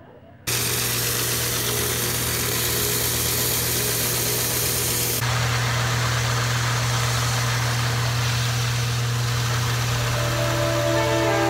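Woodshop sanding machine running: a steady motor hum under a loud rushing hiss as a wood block is held against the sanding roller, starting abruptly about half a second in and shifting in tone about five seconds in. Music comes in near the end.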